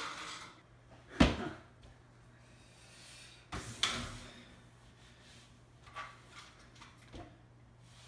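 Two sharp knocks, one about a second in and another about three and a half seconds in, followed by a few fainter taps.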